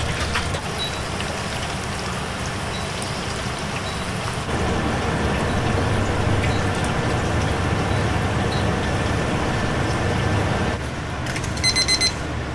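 Chicken frying in a deep fryer, a steady hiss of bubbling oil that grows louder about four seconds in. Near the end a Tanita digital kitchen timer beeps in quick repeated groups: a fry timer has run down to zero.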